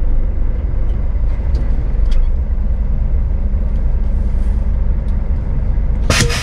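Diesel engine of a Scania S500 truck running steadily at low revs as the truck rolls slowly to a stop. Near the end comes a short, loud hiss of air.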